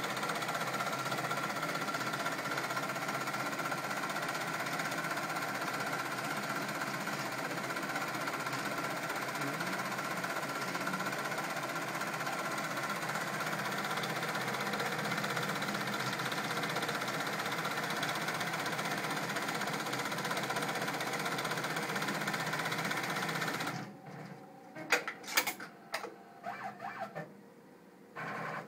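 Brother multi-needle embroidery machine running steadily as it stitches lettering onto a stocking cuff. Near the end it stops, the name finished, and a few sharp clicks follow.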